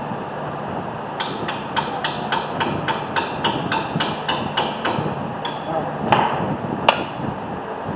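Hand hammer blows during a brake job: a quick, even run of about fourteen strikes, three or four a second, each with a short ring. Three slower, heavier blows follow near the end.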